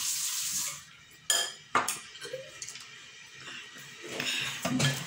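Two sharp clinks of a plastic utensil against a ceramic noodle bowl about a second and a half in, the bowl ringing briefly. Near the end a child slurps noodles.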